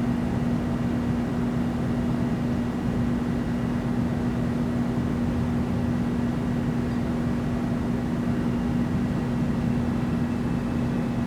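Steady background hum with a constant low tone under an even hiss, unchanging and with no separate events.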